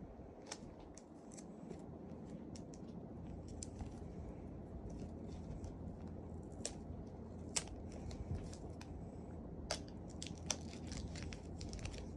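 Thin plastic protective film being peeled off a new photo printer: faint crinkling with scattered small clicks and ticks.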